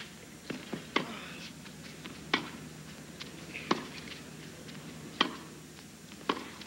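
Tennis ball struck back and forth by rackets in a baseline rally on a hard court: sharp pops about every second and a half, with lighter ball bounces between them, over a faint crowd murmur.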